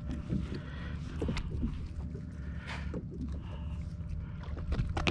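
Steady low hum of a boat's engine running, with scattered short clicks and knocks over it.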